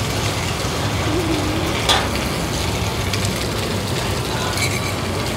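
Bột chiên (rice-flour cake with egg) frying in a pan, a steady sizzle with a single sharp clack about two seconds in.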